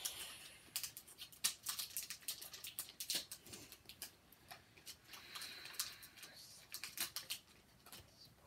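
A foil Pokémon booster-pack wrapper and its cards being handled: irregular crinkles, small clicks and taps, with a busier patch of rustling about five seconds in.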